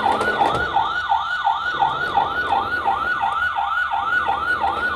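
Electronic siren from a Dickie Toys toy fire truck's sound module, set off by rolling the truck along. It is a fast, even rising-and-falling wail of about three sweeps a second.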